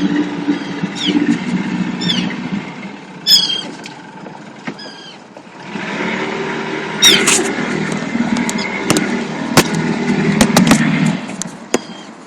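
A boat's engine running with a low steady hum. It drops away for a few seconds and comes back about six seconds in. Over it, attacking birds give sharp, high, falling calls again and again, loudest about three seconds and seven seconds in. A few sharp knocks sound near the end.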